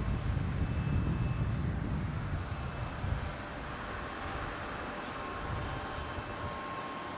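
Wind rumbling on the microphone for about the first three seconds, then a steadier background of distant machinery hum with faint high whining tones.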